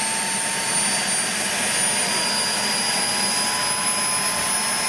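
PST 600R model jet turbine running, a steady rush of air with a high whine that creeps slowly upward in pitch.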